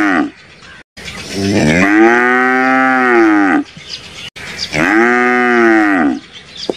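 A buffalo lowing: two long, loud moos about a second apart, each rising in pitch as it starts, holding steady for a second or two, then dropping away.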